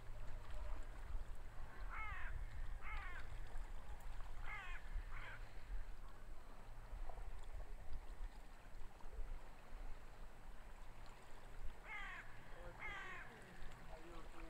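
A bird giving short calls that fall in pitch, usually in pairs about a second apart: two about two seconds in, two more around four to five seconds in, and another pair near the end, over a low steady rumble.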